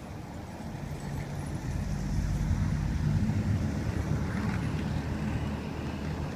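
A motor vehicle's engine rumble passing close by, building about two seconds in and easing off toward the end.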